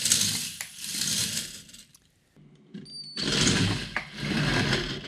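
K'nex roller coaster train rattling and rushing along its plastic track as it is launched by a homemade linear synchronous motor's electromagnet coils. The sound comes twice, with a short silence between the two runs, and each run is preceded by a brief high whine.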